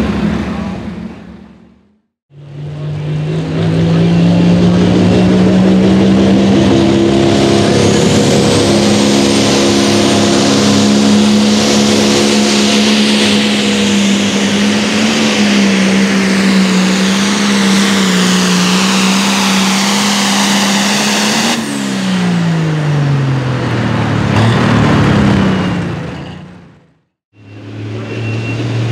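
An AGCO Allis pulling tractor's engine running flat out through a pull, holding a steady high pitch for nearly twenty seconds, then dropping sharply in pitch as the throttle is pulled back at the end of the pull. Another tractor's engine fades out at the start, and near the end a different tractor's engine comes in running at a lower steady pitch.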